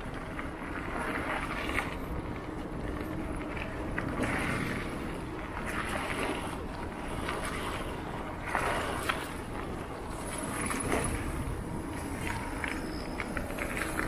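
Mountain bike rolling fast down a dirt singletrack: steady tyre noise on dirt and leaf litter that swells and fades with the terrain, with a few short knocks from bumps.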